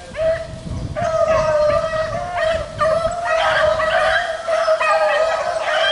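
A pack of rabbit-hunting hounds baying together as they run a rabbit's trail, many overlapping drawn-out cries.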